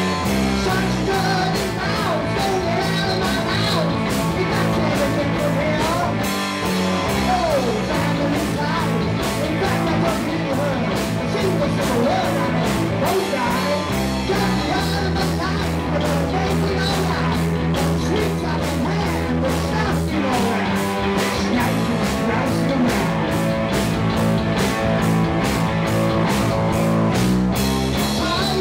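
Live rock band playing a song: a male singer over electric guitars, bass guitar and a drum kit keeping a steady beat.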